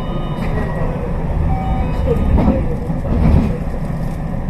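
Running noise of a JR West Special Rapid Service electric train: a steady low rumble, with two louder knocks about a second apart near the middle.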